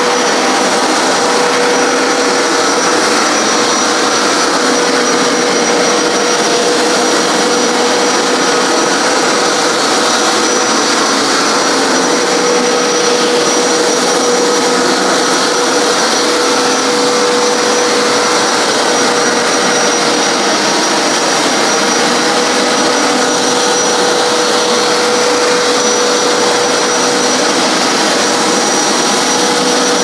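Hoover PowerScrub XL Pet carpet cleaner running steadily as it is pushed across carpet. Its motor gives a constant whine over an even hiss.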